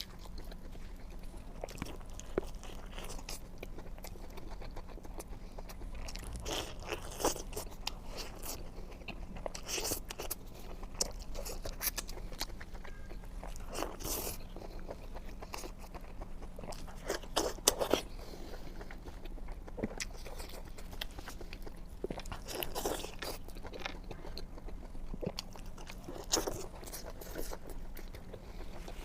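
Close-miked eating: crunchy bites and chewing, with a louder bite every few seconds.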